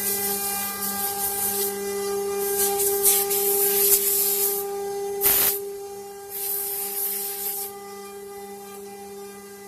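CNC router spindle whining steadily at a high, even pitch while the bit cuts wood, with bursts of cutting hiss over it. A brief loud hiss comes about five seconds in, and the cutting noise eases off from about eight seconds while the whine goes on.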